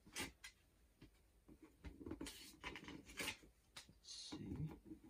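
Cardboard shipping box being handled and cut open with a box opener: intermittent scraping and rustling with a few light knocks.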